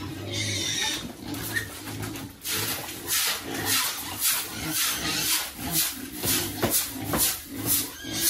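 Pigs eating: low grunts, then a steady run of chomping and crunching at about two bites a second.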